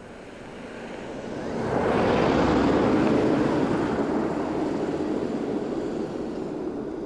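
A car passing by on a snow-covered road: its engine and tyre noise swells as it approaches, peaks about two to three seconds in, then fades slowly as it drives away.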